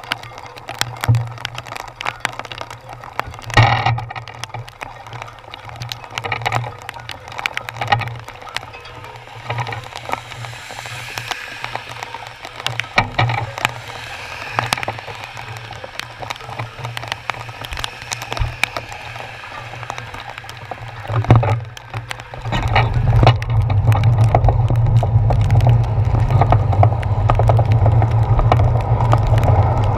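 Raindrops tapping on a GoPro's waterproof housing in heavy rain, a dense scatter of irregular small clicks. About three quarters of the way through, a loud low rumble takes over as the bicycle gets moving: wind on the camera and tyres on the wet road.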